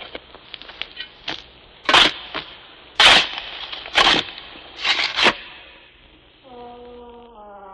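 Recorded horror sound effects: a series of heavy, sharp crashing impacts about once a second, with crackling noise between them. Near the end a steady droning tone with several overtones fades in.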